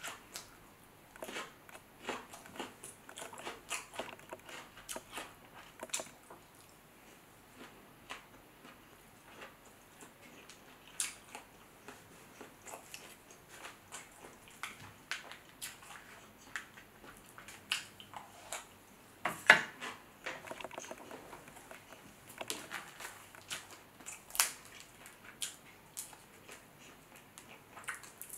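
Mouth sounds of eating seafood boil: chewing and wet smacking, mixed with small crackles as crawfish and shrimp shells are peeled by hand. One sharp crack, the loudest sound, comes about two-thirds of the way through.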